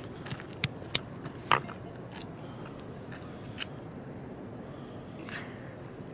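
A hand-held stone striking a nut on a rock slab: four sharp cracks in the first second and a half. Then a few faint clicks as broken shell is picked apart by hand.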